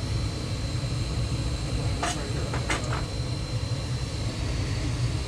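Ducane gas furnace running with a steady low roar, a thin high whine over it, and a few light clicks about two and three seconds in. The burner was lit by hand because its igniter will not glow.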